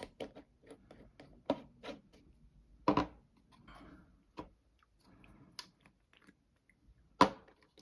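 Small clicks and taps of plastic model kit parts and hobby tools being handled on a workbench, with two louder knocks about three seconds in and near the end.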